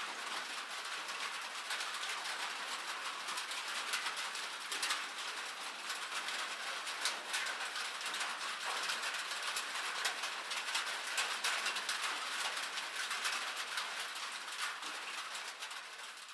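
Light rain falling, a steady patter of many small drop ticks, beginning to fade out at the very end.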